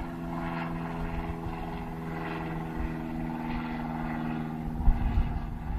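Motorboat engine running at a steady pitch, a constant hum that cuts out about five seconds in. Low rumbling knocks follow near the end.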